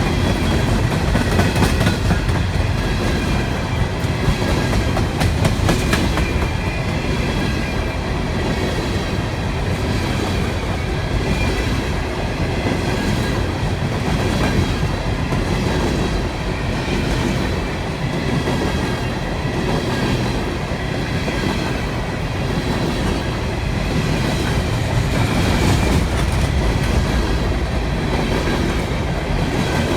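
Long freight train of hopper cars rolling past, its wheels clicking steadily over the rail joints under a continuous low rumble, with steady high-pitched wheel tones over the top.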